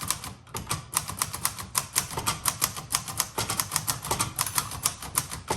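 Keys of a 1960s Singer Scholastic T4 (Royal-built) portable typewriter being typed in a quick, even run, about five or six sharp clacks a second, starting after a brief pause.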